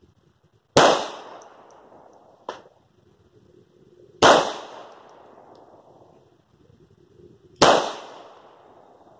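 Three shots from a Smith & Wesson M&P380 Shield EZ pistol in slow, aimed fire, about three and a half seconds apart, each report ringing out and fading over a second or two. A lighter, sharp snap comes between the first two shots.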